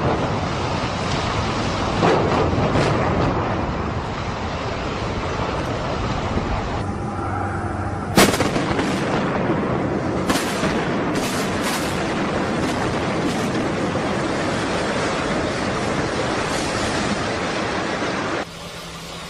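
Building demolition: sharp bangs of blasts or impacts, about 2, 8 and 10 seconds in, over a continuous rumble of collapsing structure and falling debris. The sound cuts off sharply near the end.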